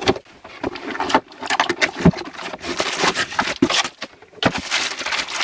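Unpacking a boxed LED work light: a cardboard box being opened and the lamp in its plastic film wrapping lifted out, with crinkling and rustling and many small knocks and scrapes.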